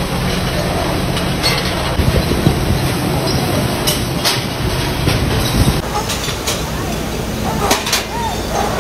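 Bottle-factory conveyor running steadily, with empty glass bottles jostling and clinking against each other as they ride along; a few sharper glass clinks stand out.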